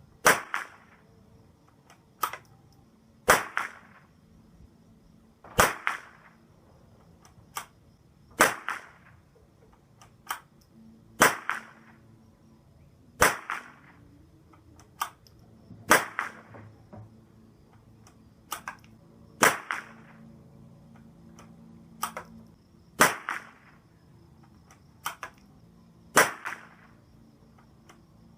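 CZ455 Varmint .22 LR bolt-action rifle firing ten shots of silicone-greased Norma TAC22, one roughly every two to three seconds, each a sharp crack. Lighter clicks fall between the shots as the bolt is worked to single-load each round.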